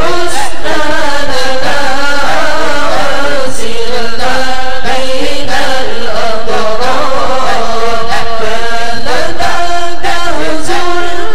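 Melodic Arabic chanting of an Islamic supplication (doa) in dzikir style, the voice lines held and gliding through ornamented pitches without a break.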